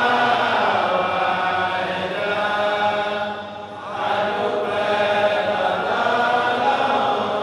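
Men's voices chanting together in long, drawn-out phrases, with a short breath pause about halfway through.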